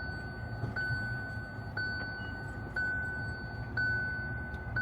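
Car warning chime: a single steady electronic tone, repeating about once a second, over a low steady engine and road rumble.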